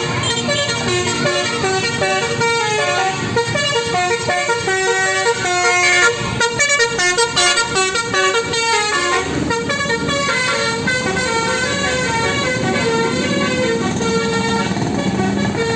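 A bus's multi-note 'telolet' musical horn playing a fast tune of quickly changing notes, with a run of short clipped notes about six seconds in. After about nine seconds it gives way to longer held tones over the sound of the bus running.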